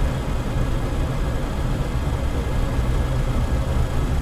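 Steady flight-deck noise of a Boeing 727-100F in its climb: an unchanging low rumble from its three rear-mounted Pratt & Whitney JT8D turbofans, with a rushing hiss of airflow over it.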